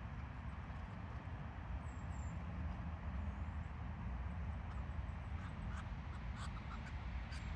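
Birds calling over a steady low rumble: a thin high chirp about two seconds in, and a few short sharp calls near the end.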